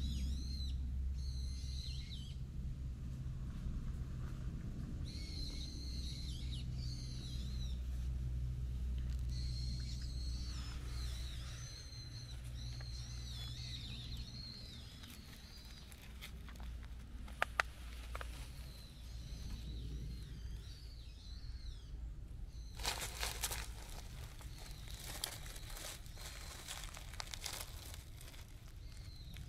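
A bird singing in repeated warbling phrases over a low rumble. From about 23 s in, rustling and a few sharp clicks come in as the singing thins out.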